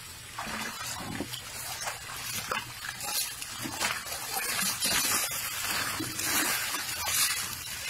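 Water splashing and sloshing in a plastic tub as a baby elephant plays and rolls in it, growing louder about halfway through.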